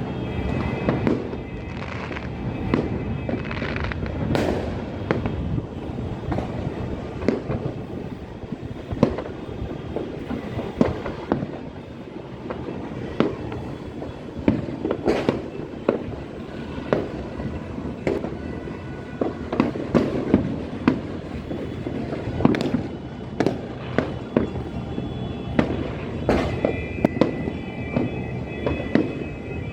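Fireworks and firecrackers going off here and there all around: a continuous crackle and rumble with frequent sharp bangs throughout.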